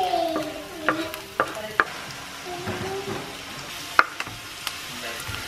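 Diced onion and garlic sizzling in hot oil in a nonstick wok, with a few sharp taps and knocks of a wooden spatula scraping them off a wooden chopping board into the pan; the loudest knock comes about four seconds in.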